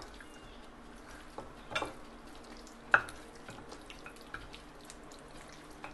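Cooking oil heating in a frying pan on a gas burner: a faint steady frying hiss with a few sharp pops or clicks, the loudest about three seconds in.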